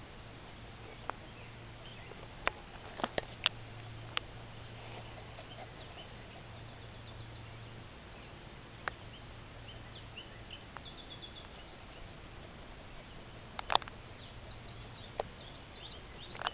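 Quiet outdoor background with a steady low hum, a dozen or so sharp clicks scattered through it, the loudest near the end, and faint short high chirps.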